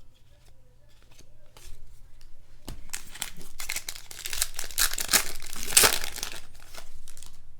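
Plastic wrapper of a baseball card pack crinkling and tearing as the pack is ripped open, a dense run of crackles that builds up about three seconds in and is loudest near the end.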